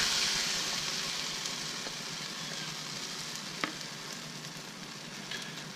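Food scraps sizzling on a hot flat-top propane griddle, a steady hiss slowly dying away, with one short click about three and a half seconds in.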